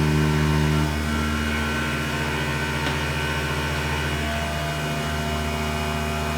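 Grizzly G0704 CNC-converted milling machine running an adaptive clearing pass: a steady hum of the spindle and axis motors with whining tones that shift about a second in and again a little after four seconds as the toolpath changes. It sounds nice and tight.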